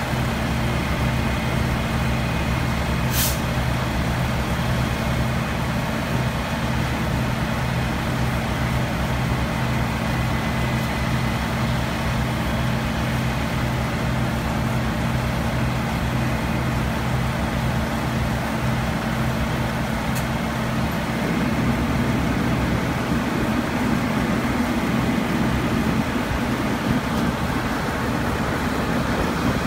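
Fire engine's engine running steadily. Its note changes about two-thirds of the way through, and there is one short click about three seconds in.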